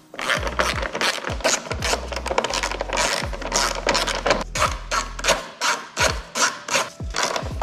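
Background music with a kick-drum beat, deep bass and fast crisp percussion.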